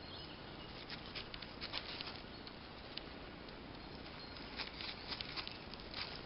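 Spring forest ambience: scattered light ticks and rustles come at irregular moments over a steady background hiss.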